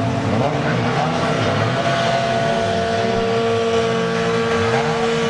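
Engines of several demolition derby cars running and revving at once, their pitch rising and falling as they accelerate and slow.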